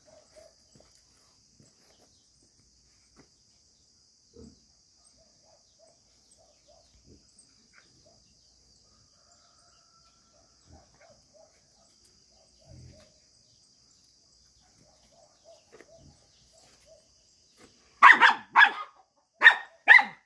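A young blue heeler barks sharply about four times in quick succession near the end, at a cat it is pestering. A faint steady insect drone runs underneath.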